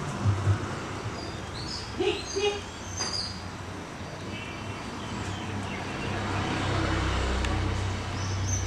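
Outdoor ambience: small birds chirping briefly a couple of seconds in, over a low steady rumble that grows louder toward the end.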